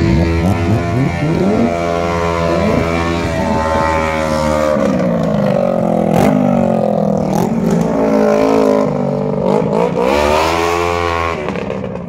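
Engine revving hard again and again, its pitch climbing and dropping repeatedly.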